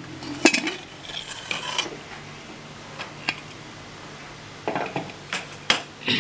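Aluminium pressure cooker being opened once its whistles have stopped: sharp metal clinks and clanks as the lid is worked loose and lifted off. The loudest clank comes about half a second in, with a few light ticks after it and a cluster of clinks near the end.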